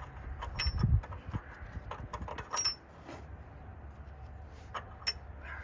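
Scattered metal clicks and clinks from handling a snowplow shoe and its stacked spacer washers at the plow blade's mount, the loudest about two and a half seconds in and another about five seconds in.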